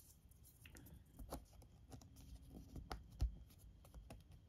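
Faint, scattered light taps and clicks of cardboard board-game pieces being handled, with one louder knock about three seconds in.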